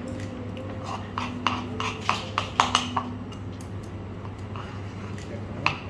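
A thin metal utensil clicking and tapping against a bowl and ceramic plates as minced fish is scooped and spread, a quick run of taps about a second in and one more near the end. A steady low hum lies underneath.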